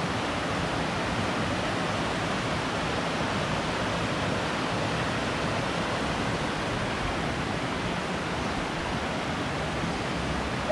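Creek water rushing steadily over a low dam spillway and between boulders, a constant even wash of sound.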